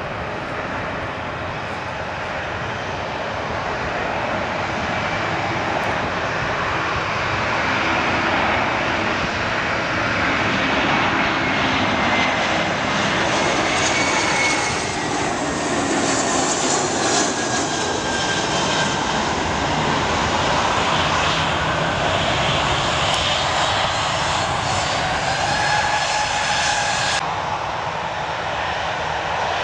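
Air France Airbus A321's CFM56 jet engines on final approach with gear down, the rush growing louder as it comes close, with an engine whine that slides down in pitch as it passes. About 27 seconds in, the sound cuts to another airliner, a Virgin Airbus A320, on approach.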